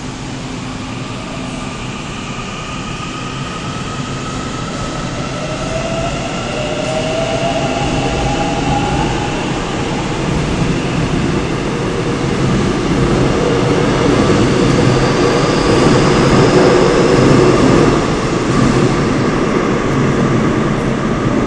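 Seoul Subway Line 7 7000-series train with a Toshiba IGBT VVVF inverter, accelerating away from the platform. The inverter whines in several tones that climb in pitch. Over the second half the rumble of wheels on rail grows louder as the train gathers speed.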